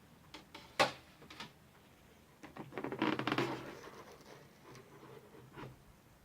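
Handling noise from a handmade mechanical model box: a few light clicks and taps, then a rattling, scraping rustle lasting about a second and a half in the middle.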